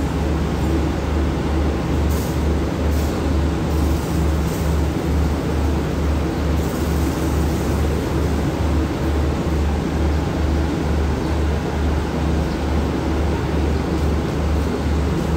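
Diesel engine of a stationary passenger train idling, a steady low throb that pulses about two to three times a second, with a few faint clicks and a brief hiss partway through.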